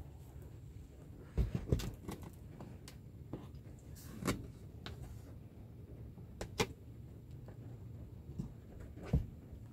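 Car sun visor being handled: a handful of sharp plastic clicks and knocks as it is pressed, folded and its vanity-mirror cover worked, two close together early on and single ones spaced a few seconds apart. A low steady rumble lies underneath.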